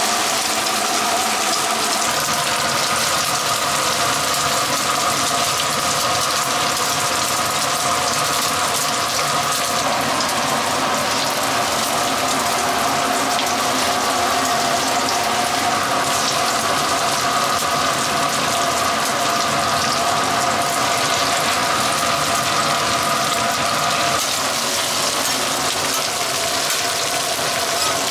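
Egg-battered jeon sizzling in oil on a flat griddle: a steady, dense hiss, with a steady hum of a few tones underneath.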